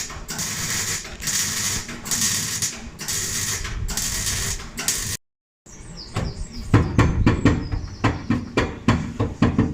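MIG welder stitch-welding in short crackling bursts, each about half a second long with brief pauses between them. It cuts off abruptly about five seconds in, and after a short silence comes a quick run of sharp clicks and knocks.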